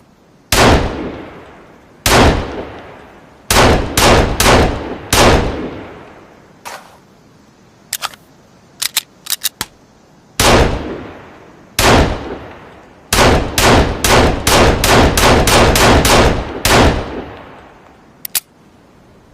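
Pistol shots, each with a long echoing tail: two single shots, a quick string of four, then after a few light clicks two more single shots and a rapid string of about ten shots at roughly three a second. A couple of light clicks come near the end.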